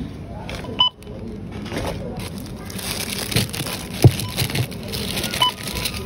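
Short electronic beeps, two of them, about five seconds apart, over background chatter and rustling, with a knock about four seconds in.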